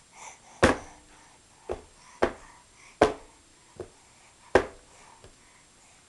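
Sharp knocks on a hard surface, about seven at an uneven pace, the loudest about a second in and near three seconds in.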